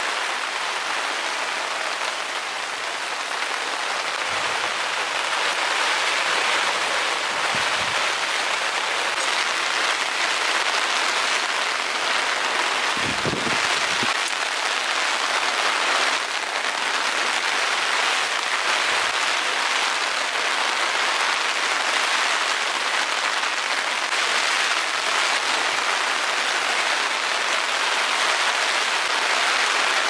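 Heavy rain falling steadily in a downpour, with a brief low thud about halfway through.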